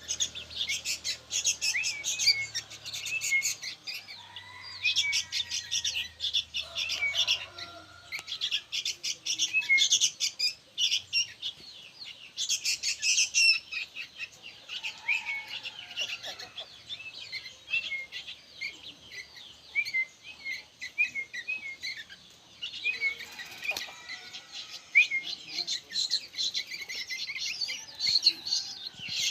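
Young sooty-headed bulbuls (kutilang) chirping noisily: rapid, high-pitched chirps in bursts that keep coming one after another, with an occasional lower sliding note.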